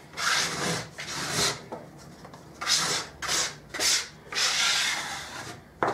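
A bench scraper scraping across a floured wooden tabletop in about six rasping strokes, gathering up leftover dough and flour.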